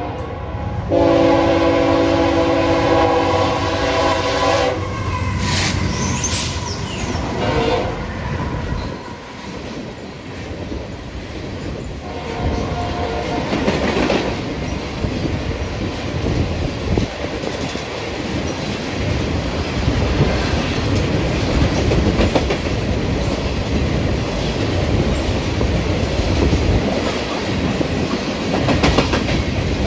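Diesel locomotive horn blowing a chord in the opening seconds, with a short break just after the start. The train then rolls past with a steady rumble and wheels clacking over rail joints, and a brief wheel squeal about six seconds in.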